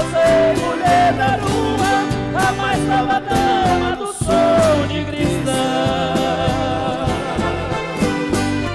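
Music: a song with a sung melody over a band with a steady bass line.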